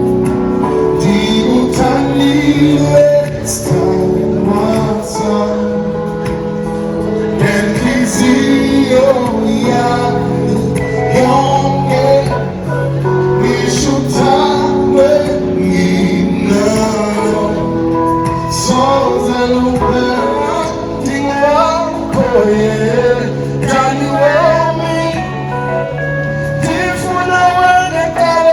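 Live music performance, with male and female voices singing over instrumental accompaniment.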